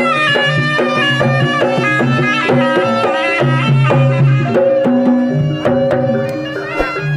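Jaranan gamelan music: hand-played kendang drums beating a rhythm under a pitched melody that steps from note to note.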